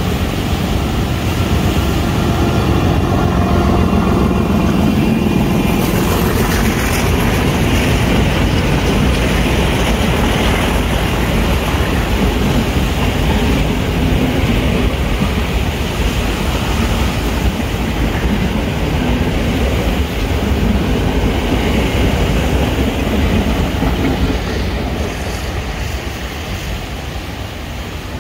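Diesel locomotive hauling a passenger train past at close range, its engine running under load, followed by the carriages rolling by on the rails with a steady rumble. The sound eases off a little near the end.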